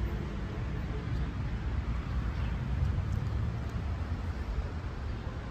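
Steady outdoor background noise: a low rumble with a fainter hiss over it, and no distinct events.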